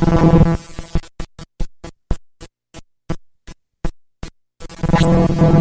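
Glitchy electronic sound from a circuit-bent LeapFrog Phonics Pond toy played through a homemade effects box. A dense buzzing drone cuts out about a second in and leaves a string of short clicks separated by silence, then the buzzing drone comes back near the end.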